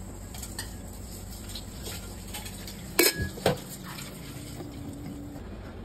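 Metal spoon clinking and scraping against an aluminium cooking pot while stirring a curry, with two loud clatters of metal kitchenware about three seconds in, half a second apart.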